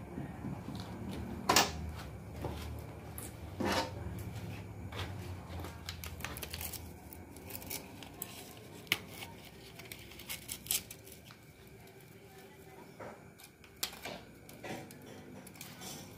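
Scattered light clicks and knocks of metal engine parts being handled on a bare Mitsubishi 4D56 cylinder block as a piston is set onto a bore, with two sharper knocks in the first four seconds. A low hum runs under the first several seconds and then fades.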